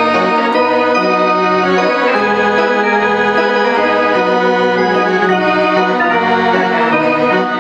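Hammond Colonnade organ being played: held chords over a bass line whose notes change about once a second.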